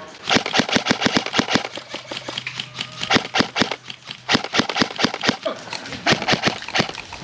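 Airsoft guns firing semi-automatic shots: sharp clicks in quick runs of several a second, with short lulls about two and four seconds in.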